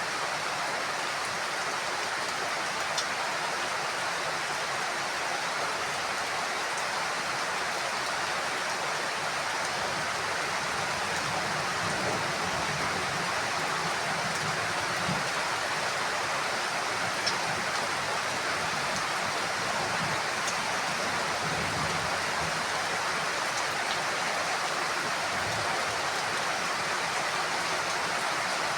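Heavy rain falling steadily, with a few sharper drop ticks, and a faint low rumble that comes and goes through the middle stretch.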